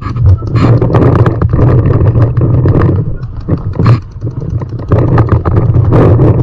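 Paintball markers popping in quick irregular strings and paintballs smacking the inflatable bunkers, over a loud low rumble.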